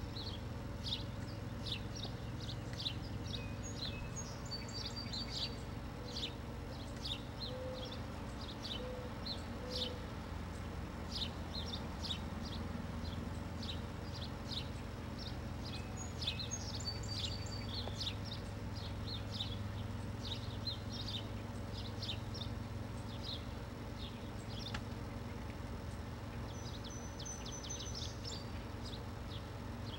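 Small birds chirping repeatedly with short high chirps, with a few brief whistled phrases mixed in, over a steady low background hum.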